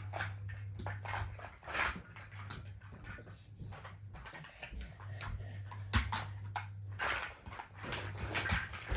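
Children playing with plastic toy blocks: scattered short clacks of the blocks and toys being handled, with a fussy baby's whimpering sounds.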